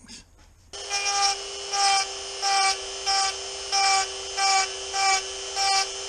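A small handheld power tool runs steadily while its bit is worked against an aluminum knife handle scale to texture the metal. A louder whine swells over the hum about three times every two seconds as the bit bears on the scale. The tool starts just under a second in and cuts off abruptly.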